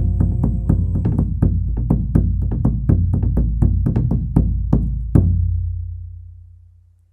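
Congado Moçambique percussion playing a steady beat of about four strokes a second over a low drum rumble, ending on a final stroke about five seconds in; the low drum then rings and dies away to silence.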